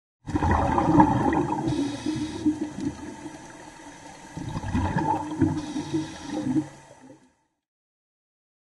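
Underwater bubbling, a gurgling rush of air bubbles that swells twice and fades out about seven seconds in.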